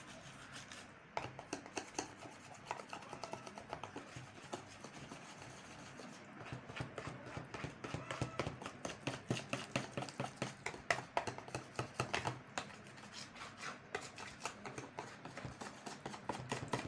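Chocolate cake batter being stirred by hand in a plastic bowl: a utensil clicks and taps quickly and unevenly against the bowl. The strokes become faster and louder about six seconds in.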